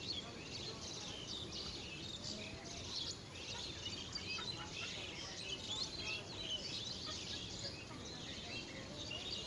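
Many small birds chirping and twittering at once, a dense overlapping chatter of quick calls, over a steady low background rush.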